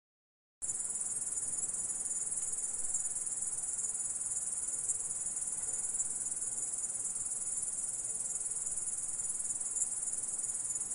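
Insect stridulating: a continuous, steady, high-pitched trilling buzz. It starts abruptly about half a second in and cuts off suddenly at the end.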